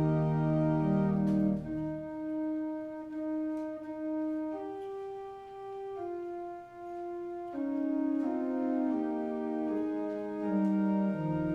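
Organ music: slow, sustained chords of steady held notes that change every second or so, with deep bass notes under them at the start and again near the end.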